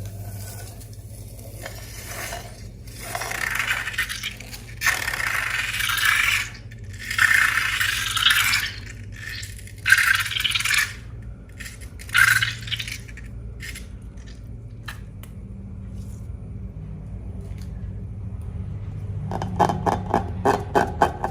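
A series of scrapes while slime materials are worked by hand, each lasting about a second, then a few light clicks and, near the end, a quick run of rapid taps.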